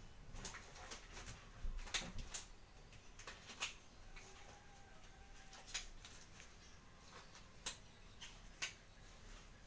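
Scattered faint clicks and light knocks, a dozen or so at irregular intervals, the sharpest about two seconds in and near the end.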